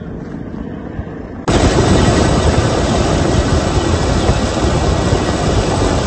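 Steady, loud noise of a helicopter in flight, heard from on board, starting abruptly about a second and a half in after a quieter stretch of outdoor background.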